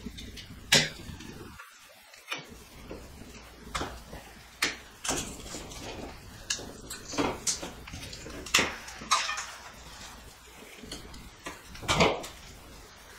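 Wire strippers and electrical cable being worked by hand, giving scattered sharp clicks and snips every second or so, with the loudest about a second in, near nine seconds and near twelve.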